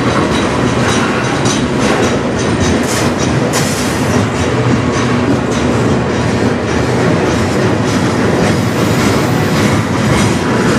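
Freight train's loaded centerbeam flatcars rolling past, with a steady rumble of wheels on rail and repeated clicks as the wheels cross rail joints.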